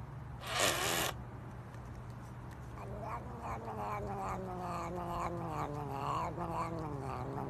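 Cat yowling: one long, drawn-out, wavering call that starts about two and a half seconds in and slowly falls in pitch. A brief rushing noise comes within the first second.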